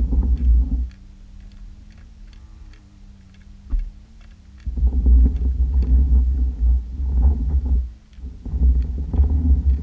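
Underwater sound picked up through an action camera's waterproof housing: loud low rumbling surges of water noise, at the start, from about halfway and again near the end. Between them there is a steady low hum with faint scattered ticks.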